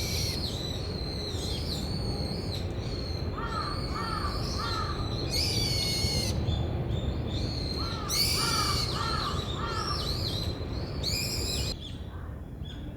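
Several wild birds calling: many short high calls, three loud harsh calls, and twice a group of three lower, looping notes. A steady low background noise runs underneath.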